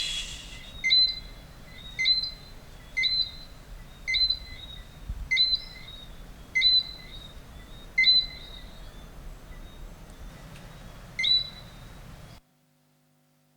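Flute playing short, high chirping notes in imitation of a bird call, repeated about once a second, with a longer pause before the last one; the sound then cuts off abruptly.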